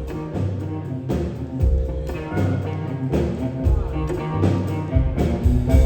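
Live band playing an instrumental break between vocal lines of a rock song, with guitar, bass and steady drum hits.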